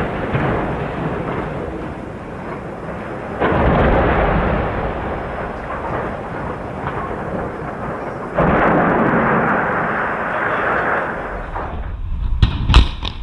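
Continuous rumble of two 400-ft steel chimney stacks toppling, with two sudden heavy crashes about three and a half and eight and a half seconds in as the stacks hit the ground. Near the end a quick series of sharp blasts: explosive cutting charges firing at a stack's base.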